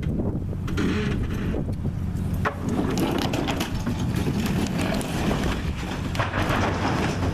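A vehicle engine running steadily while it pulls on a wooden shed, with the shed's timbers cracking and creaking from about two and a half seconds in.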